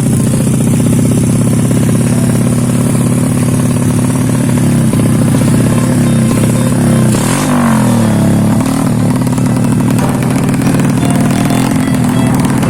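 Suzuki Smash 110 single-cylinder four-stroke engine running under way. Its pitch dips and climbs again about seven seconds in.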